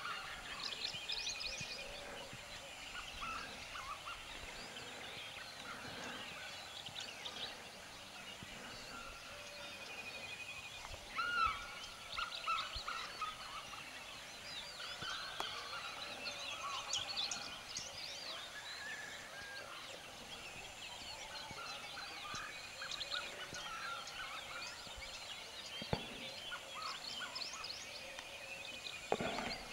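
Many wild birds calling and chirping together in dry forest, lots of short overlapping calls, with a louder single call about eleven seconds in.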